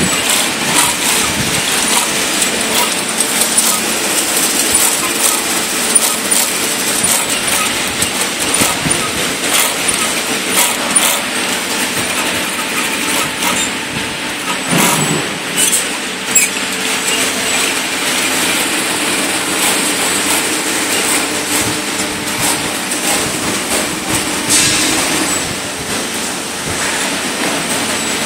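Industrial sewing machines running in a room full of them: a steady mechanical clatter with frequent sharp clicks, among them a cylinder-bed machine stitching thick material.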